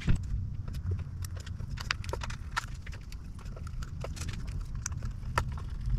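Irregular light clicks and taps from hands handling small plastic parts and wiring at a motorcycle's handlebar, over a steady low hum.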